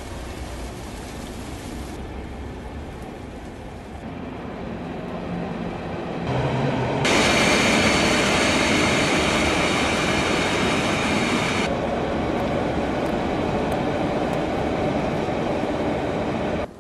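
Double-deck commuter train passing close by: a rolling rumble with a steady high whine. It grows louder in steps, is loudest for about five seconds in the middle, then cuts off suddenly near the end.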